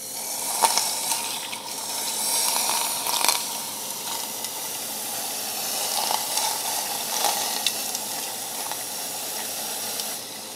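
Can of compressed air spraying its liquid propellant into a glass of water: a steady hiss with sizzling and crackling as the propellant boils off in the water and freezes it. The spray stops about ten seconds in.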